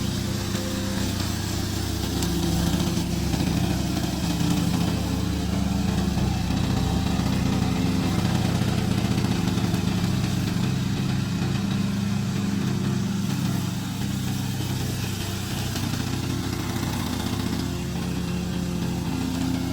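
Loncin 452cc 15 HP gasoline engine of a remote-control lawn mower running steadily, its pitch shifting slightly now and then.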